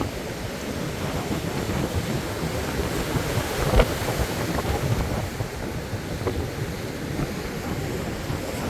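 Wind buffeting the microphone over the steady rush of ocean surf. One sharp knock comes about four seconds in.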